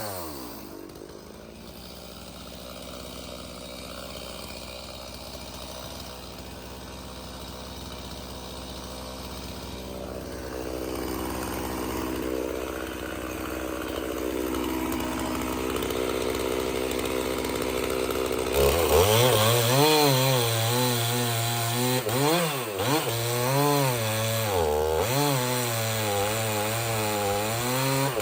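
Stihl MS 391 two-stroke chainsaw dropping to a low, quieter running at the start. About two-thirds of the way through it is throttled up loud and cuts wood, its pitch wavering and dipping several times under the load of the cut.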